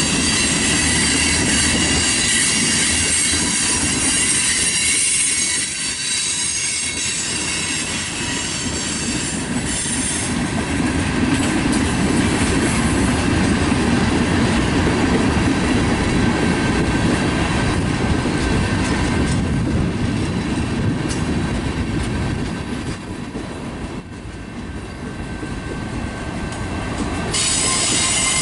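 Freight cars (tank cars, then boxcars) rolling past on steel rails, a steady rumble of wheels on track. A thin high squeal from the wheels runs through the first ten seconds or so, fades, and comes back near the end.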